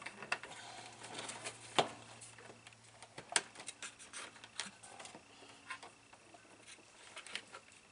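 Scattered small clicks, taps and rustles of hands handling stiff irrigation wires and seating them in a sprinkler controller's push-in terminal strip, with a sharper click about two seconds in and another near the middle, over a faint low hum.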